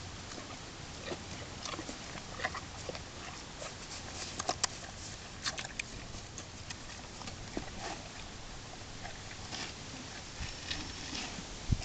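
Horse eating frozen bran mash from a rubber feed tub: irregular clicks and crunches of chewing and the muzzle working in the tub, loudest about four and a half seconds in.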